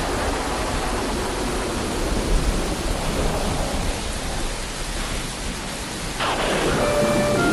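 Steady heavy rain sound effect: an even hiss over a low rumble. About six seconds in, a whoosh sweeps up and a steady tone sounds.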